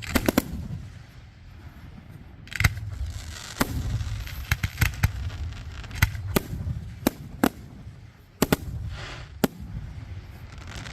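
Fireworks exploding: a string of sharp bangs at irregular intervals, three close together at the start, over a continuous low rumble.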